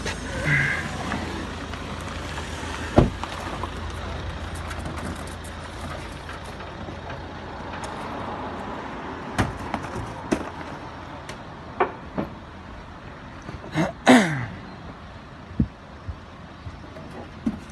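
Outdoor background with a steady low rumble and scattered knocks and clicks from a handheld phone on the move. There is a sharp knock about three seconds in, and a short squeal falling in pitch about fourteen seconds in.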